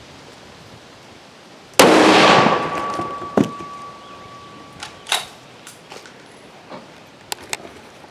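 A single 6.5 Creedmoor rifle shot about two seconds in, fired with Aguila ammunition, with a reverberant tail and a steady high tone that hangs on for about three seconds. A few sharp clicks and knocks follow.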